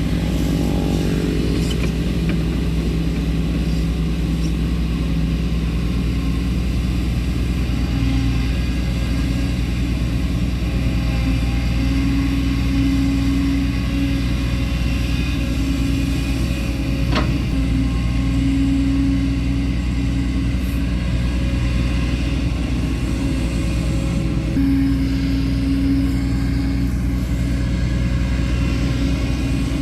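Kobelco SK140LC hydraulic excavator's diesel engine running steadily, its note rising and falling every few seconds as the hydraulics take load. A single sharp knock about 17 seconds in.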